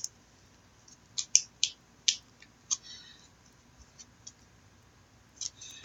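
Trading cards being handled and shuffled: a scatter of short, light clicks and rustles of card stock, with gaps between them.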